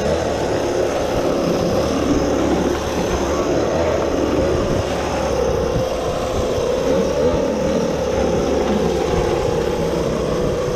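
Homemade radio-controlled go-kart's small engine running steadily as the kart drives along, its note holding near one pitch with slight rises and dips.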